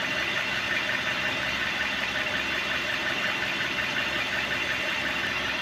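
Freshly rebuilt Hyundai G4NA 2.0-litre four-cylinder engine idling steadily at an even level.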